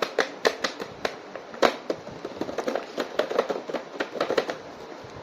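Irregular sharp clicks and taps of hard plastic being handled, typical of action figures and their packaging being moved and set down. The louder knocks come in the first couple of seconds, then a quicker run of small clicks.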